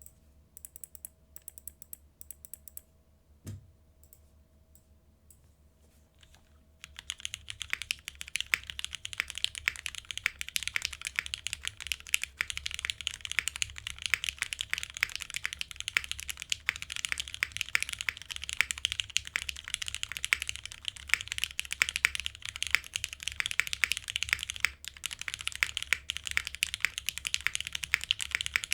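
Mechanical keyboard typing on a Singa Kohaku with lubed, broken-in Cherry MX Black linear switches, fitted with TX 65 g long springs, on a leaf-spring aluminium plate with GMK keycaps. It opens with a few separate keystrokes and a single low thump. After a few near-quiet seconds, fast continuous typing starts about seven seconds in and runs on.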